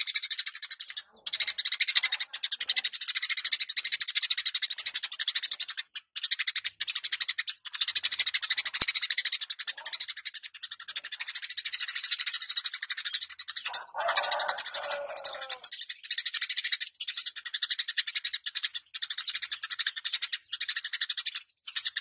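Eurasian tree sparrow chattering and chirping rapidly and continuously in high-pitched runs, broken by a few brief pauses. About two-thirds of the way through, a longer, lower-pitched call lasts about two seconds.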